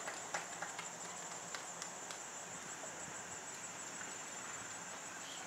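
Insects singing in a steady high-pitched hum, with a few faint sharp clicks in the first two seconds.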